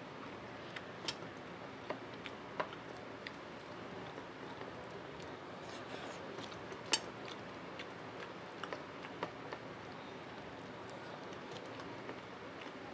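A person eating rice and greens with his fingers, close to a lapel microphone: soft chewing and wet mouth sounds with scattered small clicks, one sharper click about seven seconds in, over a steady low hiss.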